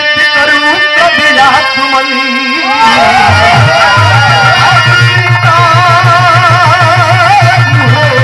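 Birha stage accompaniment: a harmonium holding steady chords while an ornamented, wavering melody line runs above it. A fast, even dholak-style drum beat comes in about three to four seconds in.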